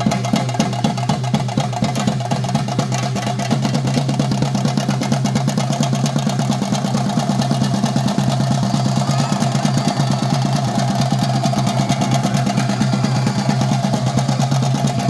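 Rapid, continuous chenda drumming of a theyyam performance, over a steady low hum.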